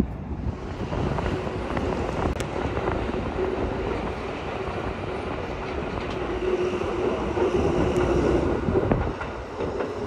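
Red Tokyo Metro Marunouchi Line 2000-series subway train running over the open-air river bridge at Ochanomizu, wheels clacking on the rails. A steady whine at one pitch rides over the running noise and is strongest in the middle and near the end, as the train heads into the tunnel.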